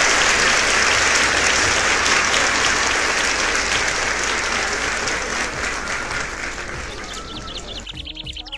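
Crowd applause, fading out steadily over several seconds, with a quick run of high chirps near the end.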